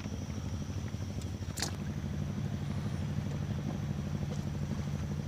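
Steady low engine hum, with one sharp click about one and a half seconds in.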